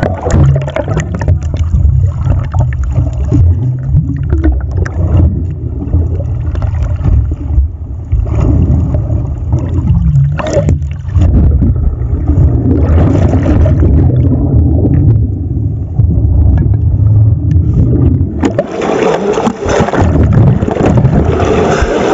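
Muffled low rumble and gurgling of water around a camera held underwater beside a net full of fish. About eighteen seconds in, the rumble drops away and the sound turns brighter and splashier as the camera comes up into churning surface water.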